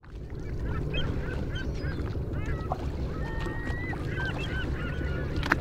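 A flock of gulls calling: many short squealing cries and one longer drawn-out call, over a steady low rumble. A single sharp knock comes near the end.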